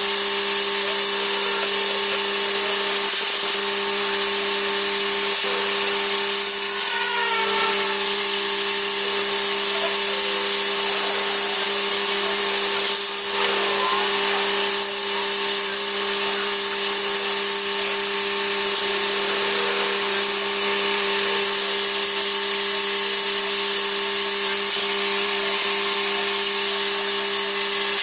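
Electric rotary polisher running with a steady whine as it buffs aluminium checker plate, the sound sped up along with the footage.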